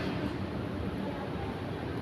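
Steady background din of a busy indoor public space, with faint, indistinct voices.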